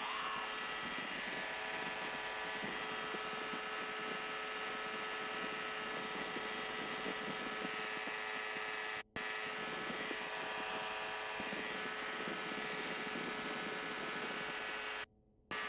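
Engine and pusher propeller of a single-seat FlightStar ultralight running steadily in cruise flight: a constant hum with one strong tone. The sound cuts out for a moment about nine seconds in and again shortly before the end.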